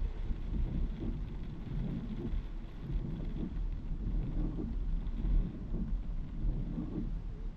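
Heavy downpour beating on a car's roof and windshield, heard from inside the moving car over a low, uneven road rumble.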